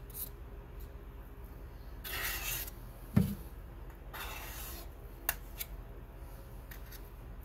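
A steel palette knife scraping coarse, hand-made Prussian blue oil paint across the plate in two drawn-out strokes. Between the strokes comes a sharp knock, the loudest sound, and a couple of light clicks follow.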